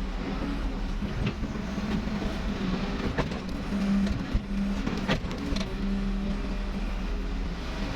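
Backhoe's diesel engine running steadily, with two sharp knocks about three and five seconds in.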